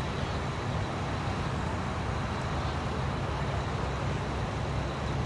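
Road traffic passing on a multi-lane road: a steady mix of engine and tyre noise with a low rumble, no single vehicle standing out.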